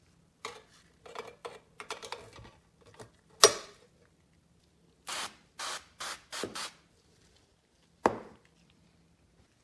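Sheet-metal parts clinking and clicking as a stainless steel chute is fitted into a vending machine cabinet, with one sharp metallic click about three and a half seconds in. Then come four short hisses from an aerosol can of canola oil cooking spray, used to lubricate the coin mechanism, and a single sharp knock near the end.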